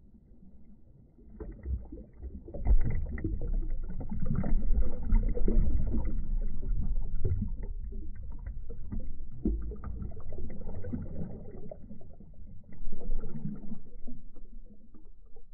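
Muffled churning and splashing of pool water stirred by backstroke swimmers, heard through a phone microphone held underwater: an irregular sloshing rumble with many small knocks that starts about a second and a half in and swells again near the end.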